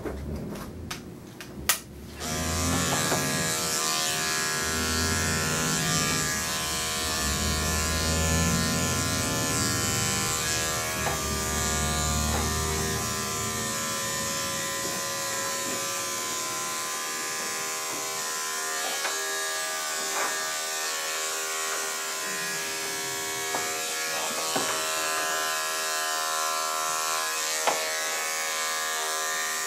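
Electric dog grooming clippers fitted with a #7 blade switch on with a click about two seconds in, then run with a steady buzz.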